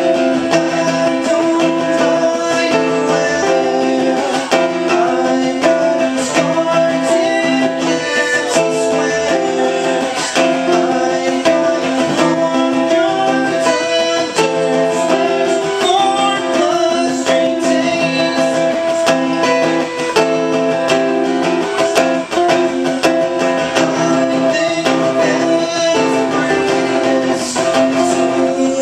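Live acoustic guitar music: a duo strumming and picking acoustic guitars together in a song, with chords changing steadily.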